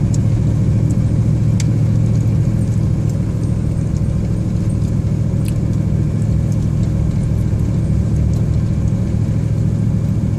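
Car driving slowly, heard from inside the cabin: a steady low engine and road rumble, with a few faint clicks.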